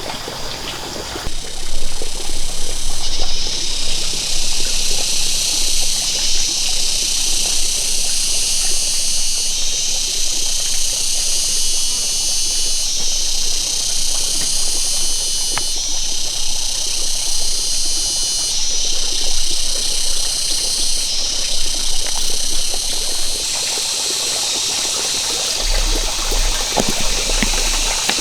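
Running water trickling and splashing, a steady hiss that shifts abruptly every few seconds.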